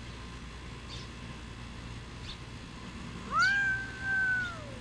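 A cat meows once, a long call about three seconds in that rises quickly, holds steady and falls away at the end.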